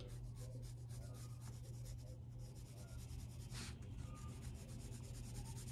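Graphite pencil shading on a paper worksheet: rapid, faint back-and-forth strokes of the pencil lead rubbing over the paper.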